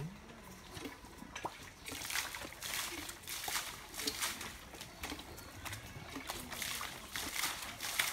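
Muddy water and slurry splashing and sloshing around a tube-well pipe as it is pumped up and down by a hand-worked bamboo lever to sink the well. The splashing comes in regular surges, about three every two seconds, beginning about two seconds in.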